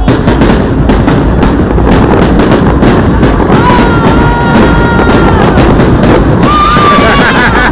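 Aerial fireworks bursting: a dense, continuous run of sharp cracks and bangs from crackling shells. A steady high note holds for about a second and a half midway, and another note rises and falls near the end.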